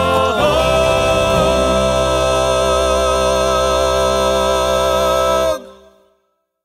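Final chord of a sung country-gospel style song: voices in harmony, with the band, hold one long wavering note that cuts off about five and a half seconds in.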